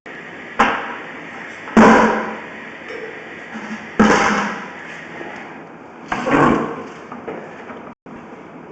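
Four heavy knocks, each ringing and dying away over about half a second, over a steady background hiss.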